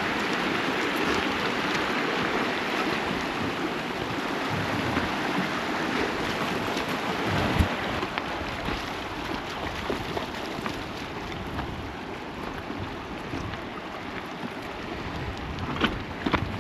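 Rushing glacial meltwater stream: a steady, loud wash of water. A few sharp knocks come near the end.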